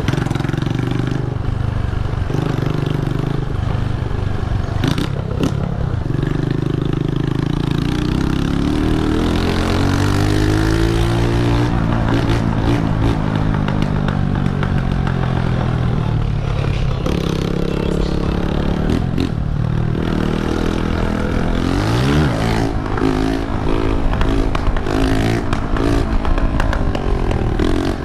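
Honda CG 125 single-cylinder four-stroke engine with a loud exhaust, heard from the moving motorcycle. The revs rise and fall several times, with occasional clattering knocks.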